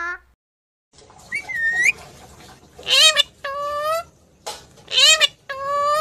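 Rose-ringed parakeet calling: a rising call, then two loud two-part calls, each a short note followed by a longer, steady held note.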